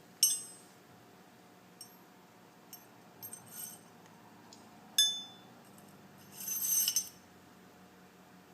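Small steel parts of a Mosin-Nagant rifle bolt clinking and clicking as they are handled and fitted back together. There is a sharp click at the start, a few light ticks, another sharp click about five seconds in, and a short rattle about two-thirds of the way through.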